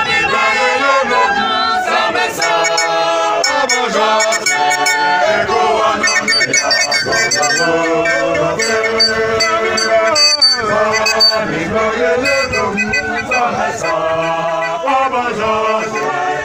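A church choir singing together while walking, many women's and men's voices in unison and harmony.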